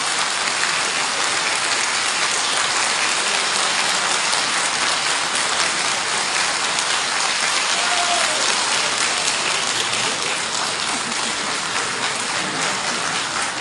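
A large crowd applauding, steady continuous clapping that eases a little near the end.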